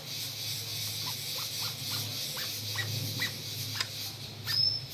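Birds calling: a run of short chirps, then a single high whistled note that rises and holds near the end, over a steady low hum.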